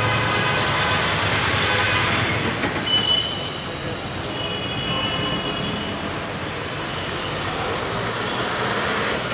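Busy street ambience: steady traffic noise with voices in the background, and a short high-pitched tone about three seconds in.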